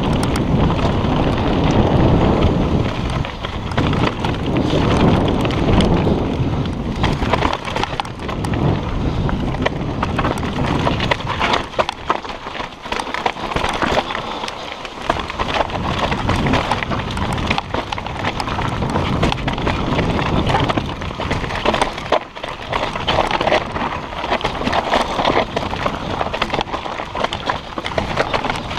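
Mountain bike descending rocky singletrack: tyres crunching over dirt and loose stones with a constant clatter of knocks and rattles from the bike. Wind rumbles on the microphone, heaviest in the first seven seconds or so.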